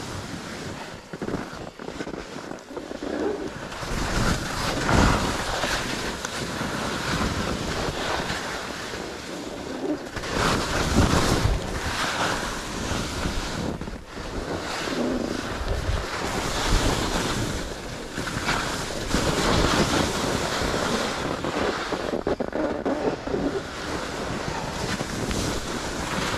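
Skis scraping and carving over packed, bumpy snow, surging louder with each turn, with wind rushing over the microphone.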